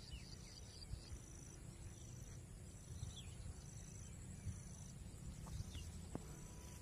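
Faint rural field ambience. An insect chirps in short, high, evenly spaced pulses a little more often than once a second, with a few brief bird chirps and a low steady rumble beneath.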